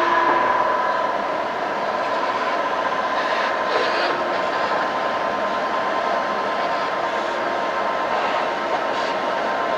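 Compressed-air blow gun blowing a steady, loud hiss with a whistling tone, blowing debris out of the engine.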